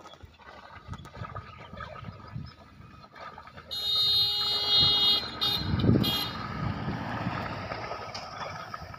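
A vehicle horn sounds loudly and high-pitched for about a second and a half near the middle, then gives a few shorter toots, with a low rumble as it ends.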